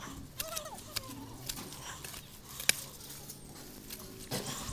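Scattered sharp clicks and light rustling from a wooden pole being handled and poked among wet weeds and mud, with one louder click a little past halfway. A short wavering squeak sounds near the start.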